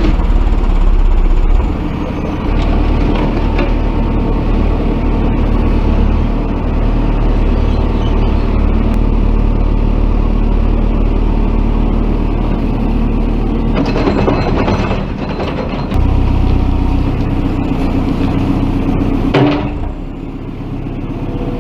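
Heavy excavator's diesel engine running steadily, with a low rumble. The sound changes abruptly about two seconds in and again past the middle, and there is a short rattling clatter between.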